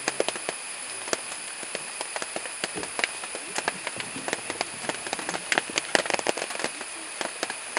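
Asian elephants tearing and chewing grass and leafy plants: a dense run of crackling and snapping of stems, busiest around six seconds in, over a steady high-pitched drone.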